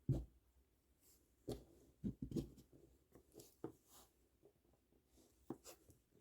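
Faint, scattered light clicks and taps of hands working plastic pony beads and string during a kandi bracelet repair, with a small cluster of clicks about two seconds in.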